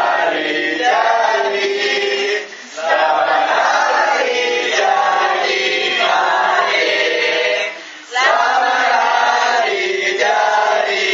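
A group of people singing a birthday song together, in phrases broken by two short pauses, about two and a half and eight seconds in.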